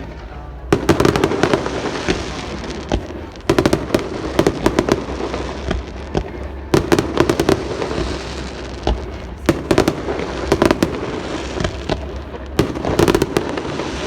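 Fireworks display: five clusters of sharp bangs and crackles, roughly every three seconds, over a steady low rumble.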